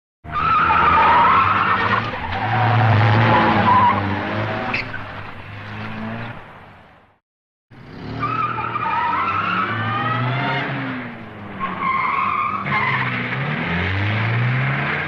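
Cars skidding, with tyres squealing in wavering, sliding tones over engine noise. There are two separate clips of about seven seconds each, with a brief silence between them.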